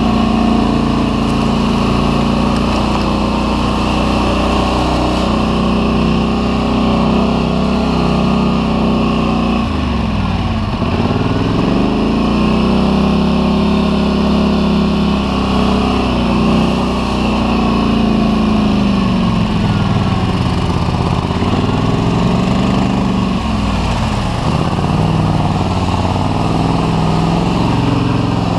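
Polaris Scrambler 850 ATV's twin-cylinder engine running as it rides a dirt trail, the revs dropping off and picking back up a few times, most deeply about ten seconds in.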